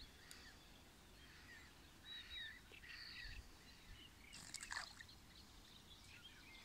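Near silence with faint birdsong: a few short chirps and whistles about two to three seconds in, and another brief call a little after four seconds.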